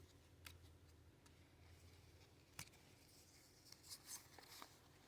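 Near silence with a few faint clicks and rustles of Pokémon trading cards being handled and flipped through.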